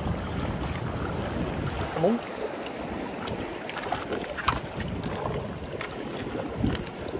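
Wind buffeting the microphone over the wash of surf on a rocky shore. The rumble eases about two seconds in, and a few sharp clicks are scattered through.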